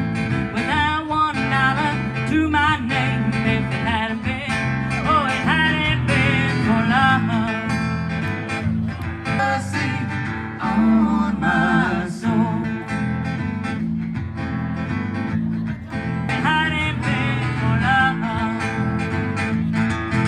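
A small live band playing a song: acoustic guitar and plucked strings with a singer.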